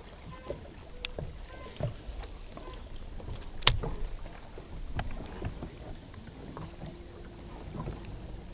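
Water slapping against a boat hull with a low wind rumble, broken by a few sharp clicks, the loudest about four seconds in.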